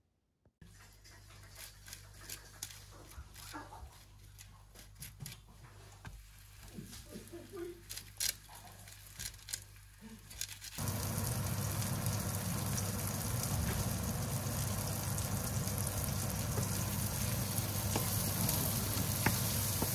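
Faint sizzling of oil in a frying pan with scattered small clicks of handling. About halfway through comes loud, steady sizzling of baguette slices frying in oil.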